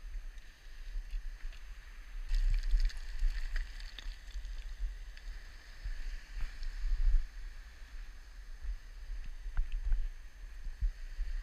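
Wind buffeting the microphone in an uneven low rumble, with the scrape and occasional click of loose slate scree and stones shifting underfoot during a steep descent.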